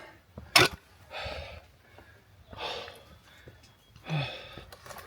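A man breathing hard from the exertion of a steep uphill climb: three heavy breaths about a second and a half apart. A sharp knock sounds just over half a second in.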